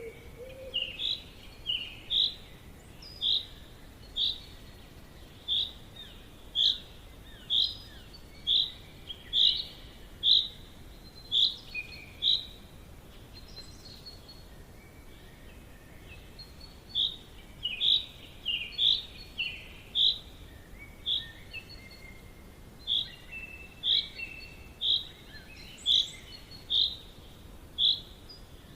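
Forest birdsong: one bird repeats a short, high call about once a second, with a pause of a few seconds midway, while fainter calls from other birds sound behind it over a low steady hiss.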